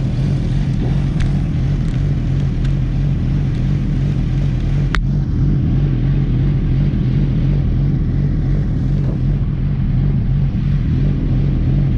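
Sport bike engine idling steadily, close to the microphone, with one sharp click about five seconds in.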